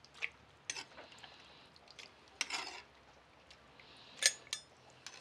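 Metal spoon clinking and scraping against a glass blender jar while cooked chiles are spooned into it: about half a dozen short clinks and scrapes, the loudest about four seconds in, one of them ringing briefly.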